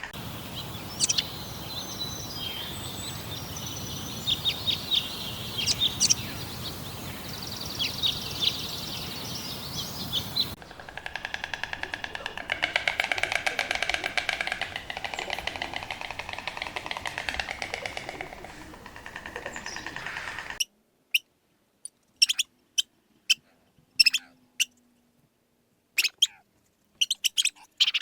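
Small birds chirping and tweeting in three short stretches. The first is quick high chirps over a steady hiss, the middle is a rapid pulsed chatter, and the last third is sharp single chirps with quiet gaps between them.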